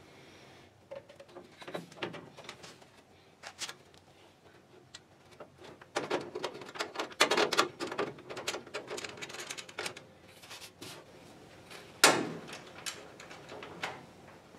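Griffin aluminium radiator being worked down into a car's core support. Scattered clicks and knocks, a busy run of clatter and scraping in the middle, and one sharp knock near the end.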